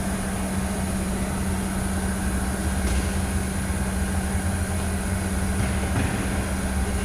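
Mitsubishi Xpander running: a steady low hum over a rumble, with no change in pitch.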